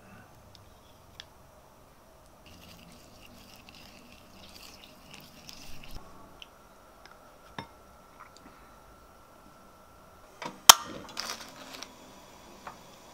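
Chopsticks stirring a thick sauce in a ceramic bowl, then a sharp crack and about a second of plastic crinkling as an Indomie instant noodle packet is opened and the noodle block pulled out.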